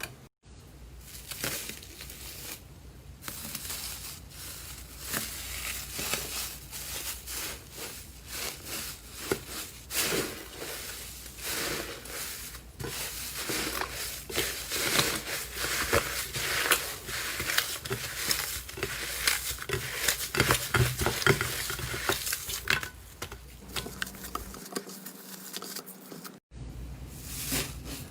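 Slime being pressed and worked by hand, giving a dense run of small crackling clicks, with a brief break near the end.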